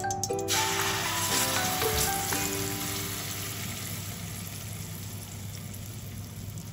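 Food frying in hot oil: the sizzle starts suddenly about half a second in, as the food goes into the pan, and slowly dies down.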